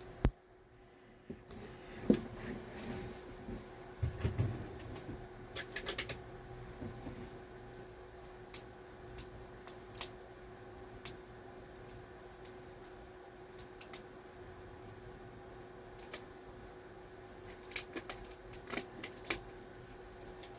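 Scattered sharp clicks and short crinkles of a bag of hard candies and their wrappers being handled and opened, in clusters near the start and near the end, over a faint steady hum.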